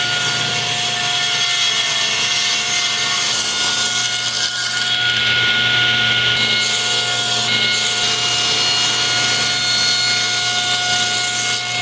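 Table saw running and ripping a thick hardwood board as it is fed through with a push stick. A steady whine from the blade and motor sounds under the noise of the cut.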